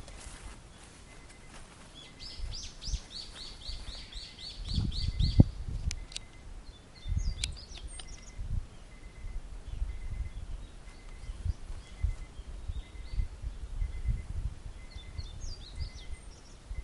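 A songbird singing a quick run of about ten repeated high notes, then a few scattered chirps, over irregular low thumps, the loudest about five seconds in.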